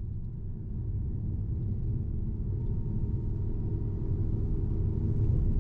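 Car driving along a road, heard from inside the cabin: a steady low rumble of road and engine noise that grows a little louder, with a faint thin hum joining about halfway.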